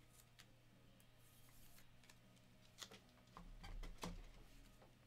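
Near silence: a steady low hum with a few faint clicks and taps, trading cards being handled and set down on the table.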